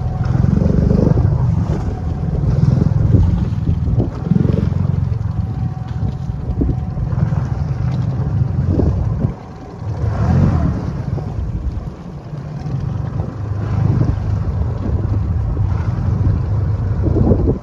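Wind rumbling and buffeting on the microphone aboard a fishing boat at sea, uneven throughout and dropping away briefly about nine seconds in.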